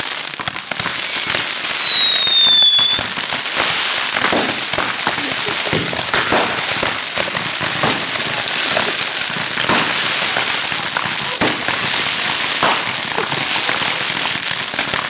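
Several handheld Roman candles firing at once in a dense, continuous barrage of pops and crackle. A firework whistle falls in pitch from about one to three seconds in.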